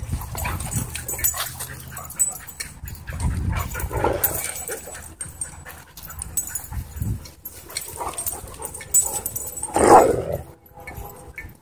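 Dogs play-fighting: a wolf dog, a German Shorthaired Pointer and a puppy wrestling, with short growls, yips and whines. Near the end the wolf dog lets out one loud cry with its head thrown back.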